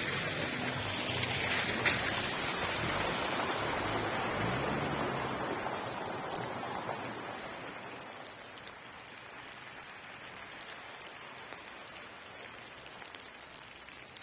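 Steady hiss of rain, with a louder rush and a low rumble over the first few seconds that fades away by about eight seconds, leaving a quieter even patter.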